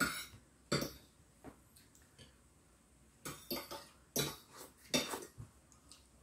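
Close-up eating sounds: a man eating rice and vegetables by hand, with a scatter of short, sharp mouth smacks and clicks as he chews.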